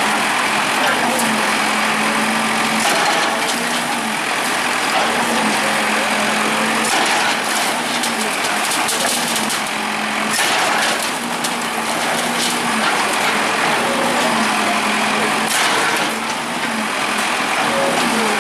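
Bulldozer's diesel engine running steadily, with a few brief louder noises partway through.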